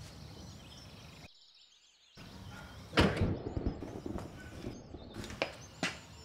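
A car's rear hatch slammed shut: one loud thunk about three seconds in, followed by a few lighter sharp knocks.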